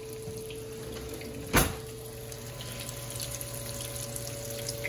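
Breaded fish bites frying in shallow oil in a nonstick pan: a steady sizzle, with one sharp knock about a second and a half in.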